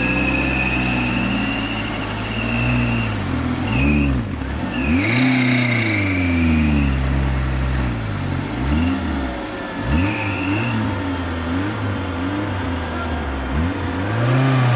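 Suzuki Samurai's engine revving hard again and again under load as it claws up a steep muddy bank. The pitch rises and falls every second or two.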